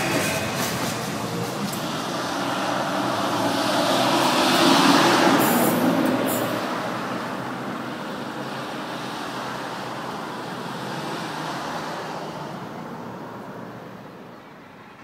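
Alstom X'Trapolis electric multiple unit passing close by: a steady rush of wheels on rail and traction noise that swells about four to five seconds in, with a couple of sharp clicks just after, then fades steadily as the train draws away.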